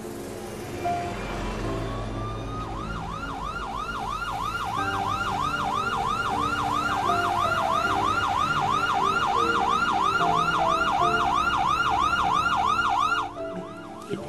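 Emergency-vehicle siren winding up in pitch, then switching to a fast yelp that rises and falls about three to four times a second and cuts off suddenly near the end, over soft background music.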